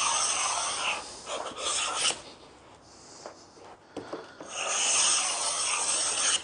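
Wooden snipe bill moulding plane cutting a V-groove along a wooden moulding blank, shavings rasping off the iron in three strokes, the last the longest and loudest.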